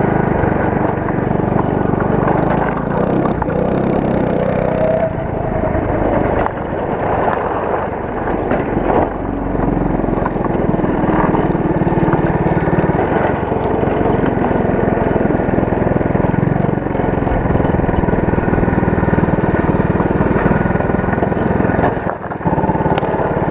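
Go-kart's 212 cc single-cylinder small engine running as the kart is driven, its note rising and falling with the throttle. It drops off briefly near the end.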